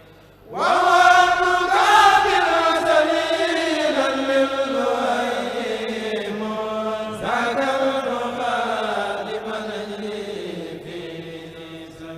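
A Mouride kourel, a group of men, chanting a khassaid without instruments through microphones. Two long drawn-out phrases each slide slowly downward in pitch, the second starting about seven seconds in.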